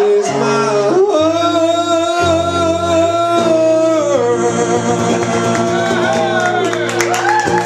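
Live acoustic duo in the song's closing bars: a man's voice holding a long sung note over strummed acoustic guitar chords.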